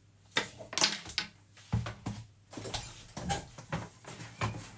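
Plastic measuring scoop scraping and clacking against a plastic tub as flour is scooped out, an irregular run of sharp scrapes and knocks; near the end the tub's plastic lid is handled and put back on.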